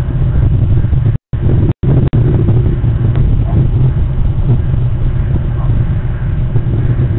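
Wind buffeting the nest camera's microphone: a loud, steady low rumble, broken by a few brief dropouts between one and two seconds in.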